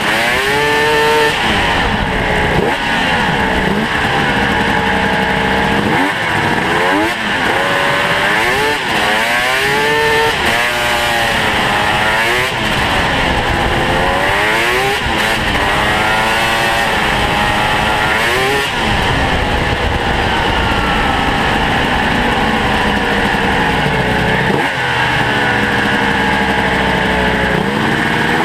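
Ski-Doo Mach Z snowmobile's two-stroke engine, ported by hand, revving up and down again and again under way. Its pitch rises and falls every couple of seconds, over a steady drivetrain and track noise.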